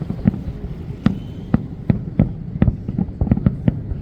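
Fireworks exploding overhead: a rapid, irregular run of booms and bangs, about a dozen in four seconds.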